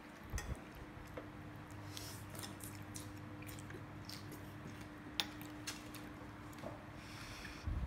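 Faint, scattered clicks and light clinks of a metal spoon and chopsticks working in a ceramic bowl of noodle soup, the sharpest click about five seconds in, over a steady low hum.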